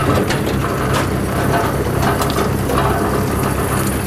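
A pineapple harvester with a conveyor boom running in the field: a steady engine hum under a constant clatter and rattle from the conveyor.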